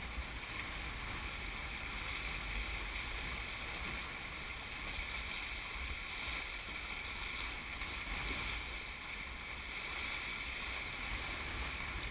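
Steady rush of water along the hulls of a Hobie 21SE catamaran under sail, with low wind rumble on the microphone.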